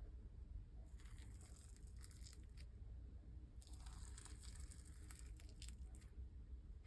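Faint crackling and squishing of slime being worked by hand, in two bouts, about a second in and again from the middle: the small pops of air bubbles in a stretchy, liquidy slime.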